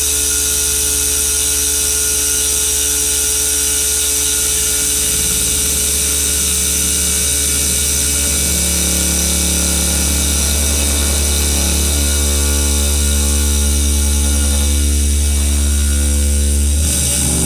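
5-axis CNC router's 12 kW water-cooled spindle cutting into a granite block under coolant water spray: a loud, steady machine hum with a high hiss of cutting and spraying water.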